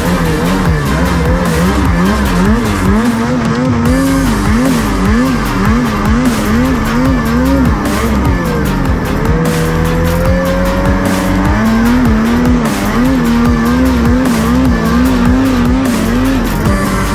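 Mountain snowmobile's two-stroke engine revving up and down over and over, with one longer rising pull about nine seconds in.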